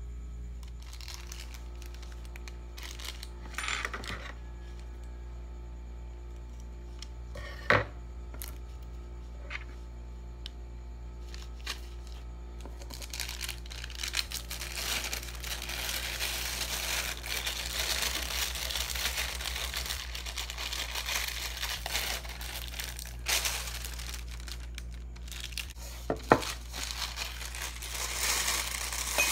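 A plastic piping bag rustling and crinkling as it is handled and opened, for about ten seconds in the middle and again near the end. A few sharp knocks stand out, one early and one near the end, over a steady low hum.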